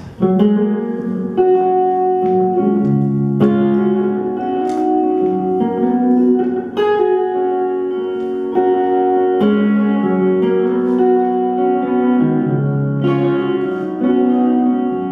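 Two electric guitars playing a slow instrumental passage, with chords and single notes struck every second or two and left to ring.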